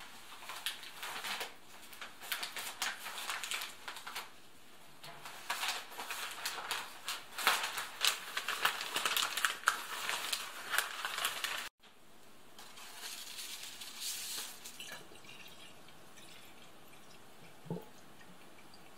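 Water at a stainless steel kitchen sink: an irregular splashing for about twelve seconds, then, after a break, quieter running water filling a glass bottle, with a short low tone near the end.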